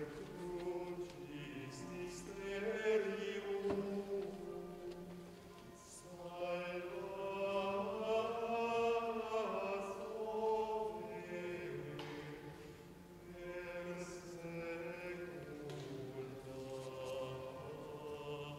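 Small group of men singing a liturgical chant together, unaccompanied, in three long phrases with short breaks between them.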